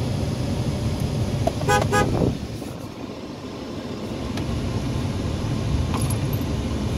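A Dodge pickup truck's horn, heard from inside the cab, gives two short toots about two seconds in to prod the car ahead to make its right turn on red. A steady low engine and cabin hum runs underneath.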